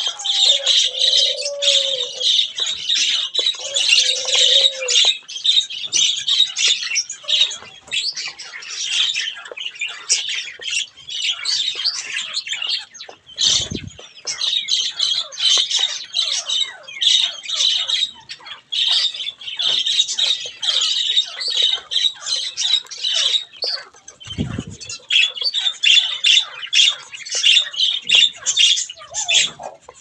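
A flock of budgerigars chattering and squawking continuously, a dense run of quick, high chirps and warbles. A few lower, drawn-out calls sound in the first few seconds, and two brief dull thuds come about midway and near the end.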